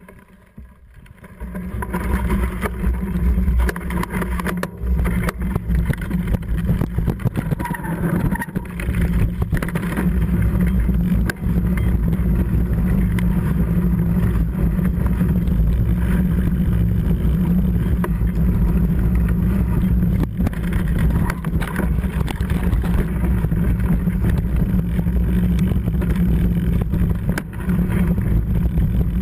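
Riding noise from a mountain bike on a rough gravel and rock trail: a steady rumble of wind on the camera microphone and tyres on the ground, with frequent small knocks and rattles from the bike. It starts quieter and turns loud about two seconds in, as the bike picks up speed.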